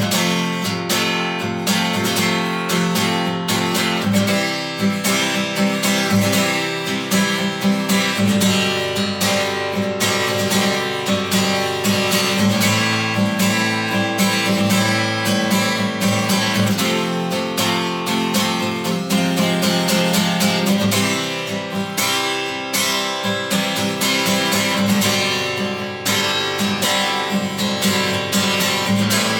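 Martin D-28 steel-string dreadnought acoustic guitar, rosewood back and sides with a spruce top, played solo with strummed chords throughout.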